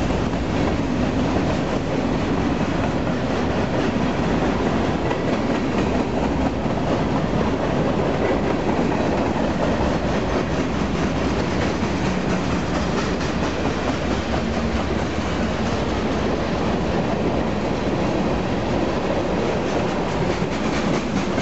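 Covered hopper cars of a long freight train rolling past on the main line: a steady, unbroken sound of steel wheels on rail.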